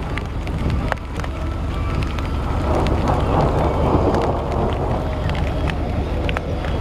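Strong storm wind rumbling on the microphone, with scattered sharp taps of rain. The rushing grows louder for a couple of seconds in the middle.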